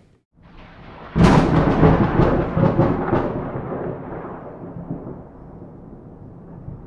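Close thunder: a sudden loud crack about a second in, several sharp crackles over the next two seconds, then a rolling rumble that slowly fades.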